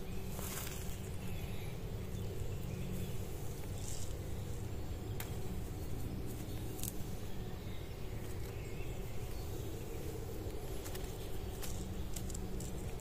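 Steady low outdoor rumble with a few scattered short clicks and rustles.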